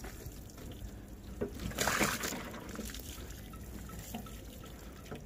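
Water trickling and dripping off a bicycle camper trailer and its roof solar panel just after they are rinsed with a jug of water, with a brief louder splash about two seconds in.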